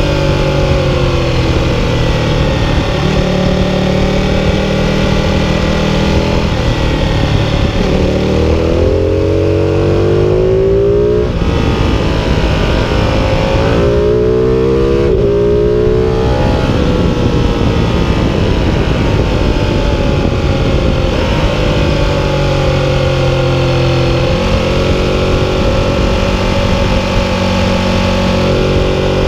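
Ducati 1299 Panigale's 1285 cc Superquadro V-twin heard from the rider's seat, pulling hard under load. Its revs climb in two long pulls, about eight and fourteen seconds in, and drop back after each, over steady wind rush.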